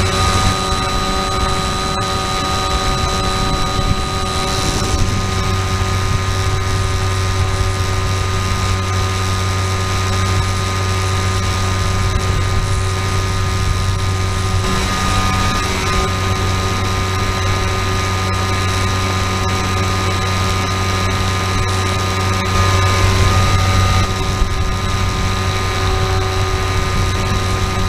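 FPV model aircraft's motor and propeller, heard from the onboard camera: a steady droning whine with wind rush over it, shifting slightly in pitch a couple of times.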